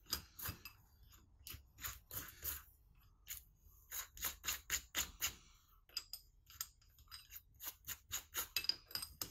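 Light metallic clicks and clinks from a drill chuck being turned by hand, its jaws closing onto a steel Allen wrench. The clicks are scattered at first and come more closely together from about halfway through.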